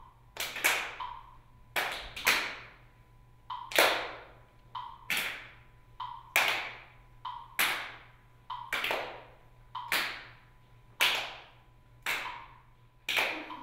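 Sharp percussive knocks, one about every second and some doubled, each with a short ringing tail, over a faint steady high tone.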